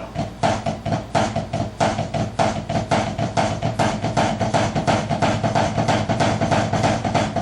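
Snare drum played with sticks in a fast, steady Swiss Army triplet pattern, a flam followed by two taps in each group, with the second note of each group accented.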